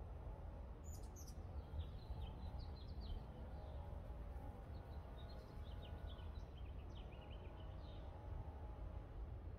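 Small birds chirping in quick runs of short, high notes over a steady low background rumble.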